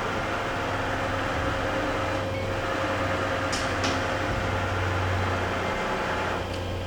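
Ikegai TU-30LL CNC turning center running under power: a steady machine hum whose low drone shifts slightly a couple of times, with two faint clicks about three and a half seconds in.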